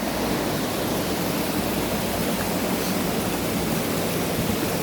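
Steady rush of a waterfall and river water running over rocks.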